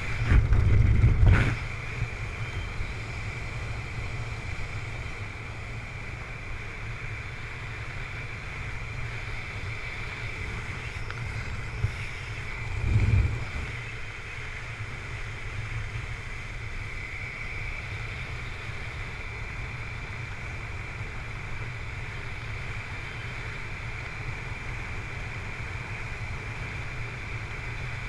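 Steady wind rushing over a camera microphone during parachute canopy flight, with heavier low buffeting gusts about a second in and again around thirteen seconds in.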